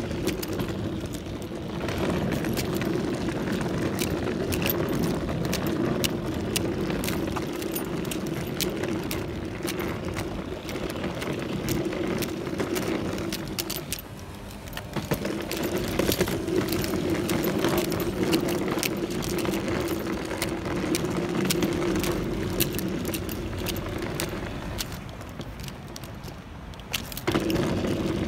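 Wheeled suitcase being pulled over tarmac and paving: a steady rolling hum from the wheels with many small clicks from bumps in the surface. It stops briefly about halfway through and again just before the end.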